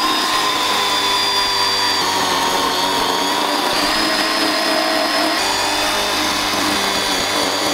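Kobalt electric chainsaw running with a steady high whine as its chain cuts into a knobby dirt-bike tire on its rim, the pitch shifting slightly a couple of times as it bites.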